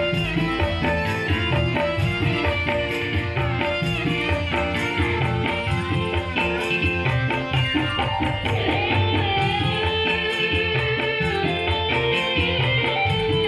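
Live electronic keyboard music played through a PA speaker for a sound check: a plucked, guitar-like melody over a rhythm accompaniment with regular percussion strokes.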